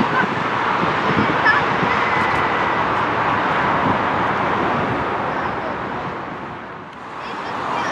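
Jet engines of a four-engine Airbus A340 climbing out after takeoff: a steady rushing jet noise that dips in level near the end.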